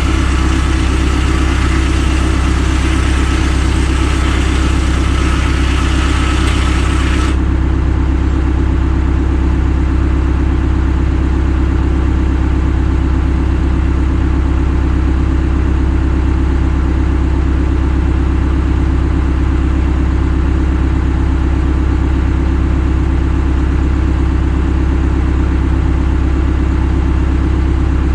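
Engine idling steadily with a deep, unchanging hum. About seven seconds in, the higher hiss above it cuts off suddenly, leaving only the low running sound.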